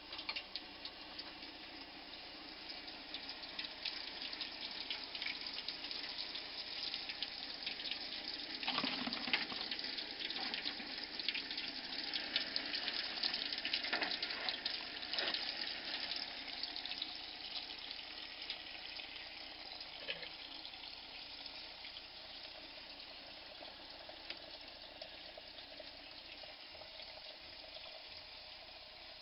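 Water splashing and trickling around a bucket of wet paper-and-sawdust pulp, with many small wet crackles and splashes, busiest in the middle and easing off toward the end.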